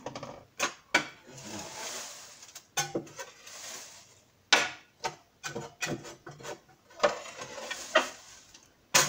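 Sawdust bedding being scraped and gathered across the floor of a glass hamster tank: stretches of rustling, scraping noise broken by many sharp clicks and knocks.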